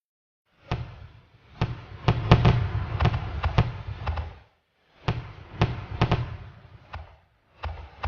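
Fireworks going off in three volleys: a rapid run of sharp bangs with a low rumble under them. Each volley breaks off into brief dead silence, about a second in, about four and a half seconds in, and about seven seconds in.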